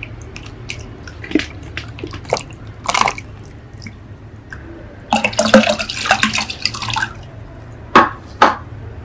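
Water splashing and dripping as goldfish are tipped from a plastic bag into a glass aquarium: scattered drips, then a burst of pouring and splashing about five seconds in, and two sharp splashes near the end.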